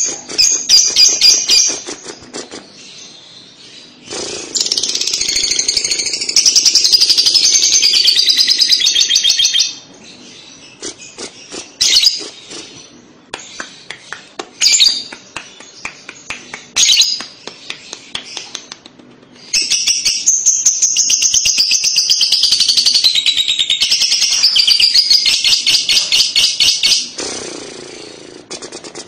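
Lovebird ngekek: long runs of rapid, high-pitched chattering trill, two of them lasting about five to seven seconds each, with shorter shrill bursts of chatter between them.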